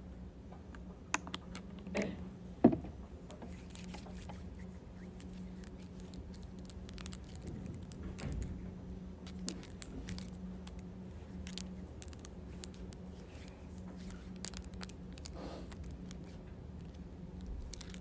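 Scattered clicks, taps and small handling noises of long acrylic nails on a clear plastic container, with one sharper click about two and a half seconds in, over a steady low hum.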